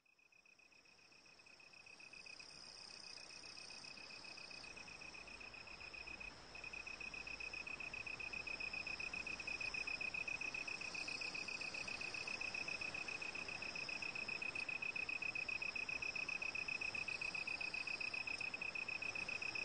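A continuous insect trill: one steady high-pitched note pulsing very rapidly and evenly, fading in over the first several seconds, with a short break about six seconds in.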